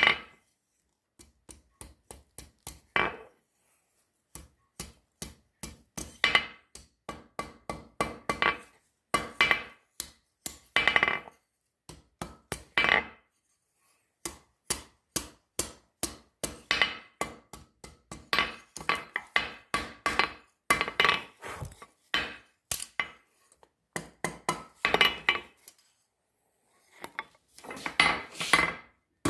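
Hand hammer striking hot steel on an anvil in runs of ringing blows, a few a second, with brief pauses between runs.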